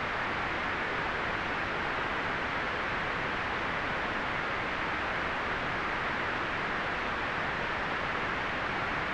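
Continuous relaxation white noise: a steady, even hiss with no changes, fuller in the middle and dull at the top.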